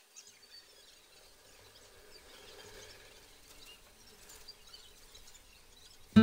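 Faint background noise with a few scattered small high chirps, then acoustic guitar music starts suddenly with a loud strum right at the end.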